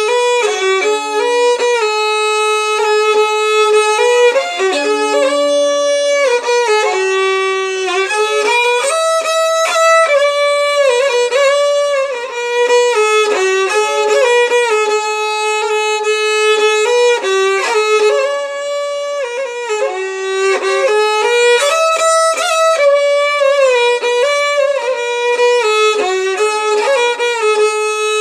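Solo violin playing a slow melody, one bowed note at a time, with notes held and slides between them.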